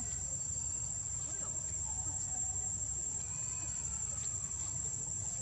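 Insects droning steadily at a high pitch, over a low steady rumble, with a few faint, distant calls.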